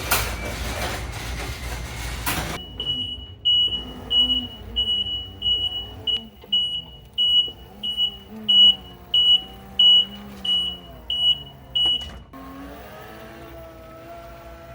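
RYOBI RM480EX electric riding mower. After a brief rush of noise, an electronic warning beep repeats about three times every two seconds for nearly ten seconds over the drive motors' whine, which shifts in pitch. The beeping stops and a steadier motor whine carries on.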